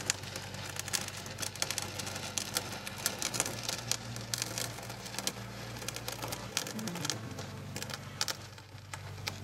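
An 8-inch drywall taping knife drawn slowly across wet cement, scraping with a dense run of small irregular clicks and crackles as it rides along the wooden edge forms. A faint low steady hum runs underneath.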